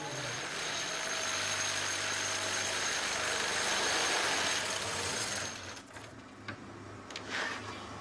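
A machine running with a steady hiss, a faint high whine and a low hum, stopping after about five and a half seconds, then a few light clicks and knocks.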